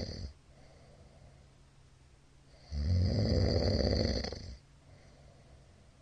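A middle-aged man snoring loudly in his sleep. The end of one snore cuts off right at the start, and after a quiet gap one long snore of about two seconds comes a little under halfway in.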